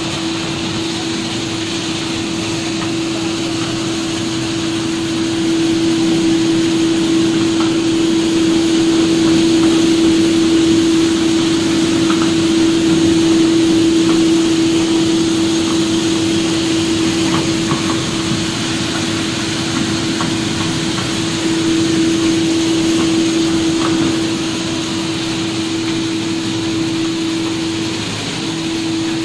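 Dal mill machine running: a steady motor hum over an even whooshing rush, louder through the middle, with a brief dip in the hum near the end.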